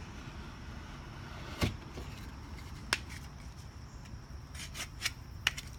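A few sharp taps and knocks of a freshly cut piece of sheetrock being handled and fitted into a hole in the wall, one or two at a time, then several close together near the end, over a low steady hum.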